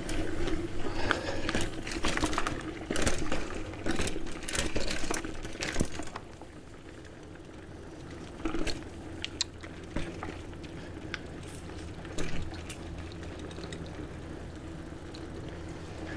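Bicycle tyres rolling over a dirt forest trail, with dense irregular crunching and rattling for about the first six seconds, then quieter rolling with a few scattered clicks. A steady low hum runs underneath.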